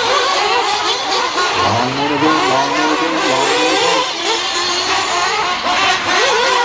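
Several nitro RC buggies racing, their small two-stroke glow engines revving up and down in an overlapping, wavering whine. A deeper engine note rises in about two seconds in and fades by four seconds.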